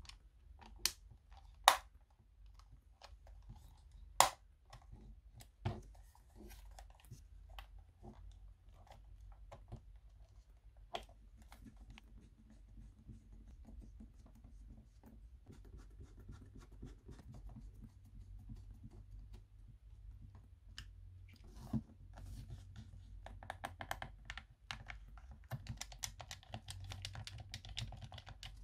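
PS4 controller being handled: a few sharp plastic clicks in the first seconds, then scattered lighter clicks, and a quicker run of clicking and rubbing near the end.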